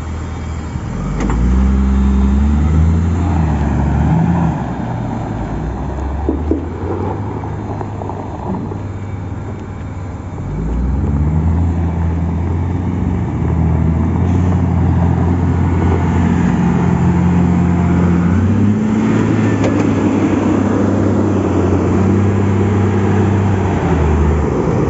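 Caterpillar 950G wheel loader's diesel engine revved up and held under load twice, briefly at first and then for about fourteen seconds, as the machine is driven in gear against its newly adjusted parking brake to test whether the brake holds.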